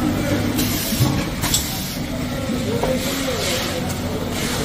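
Servo-driven horizontal pillow-pack wrapping machine running: a steady mechanical hum with recurring hissing swishes and a sharp click about one and a half seconds in.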